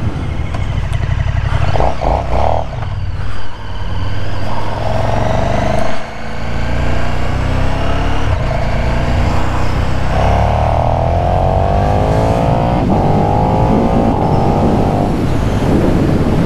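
KTM 1290 Super Duke R's V-twin engine on its stock exhaust, accelerating hard with loud intake roar. The pitch rises through each gear and dips briefly at each of several upshifts.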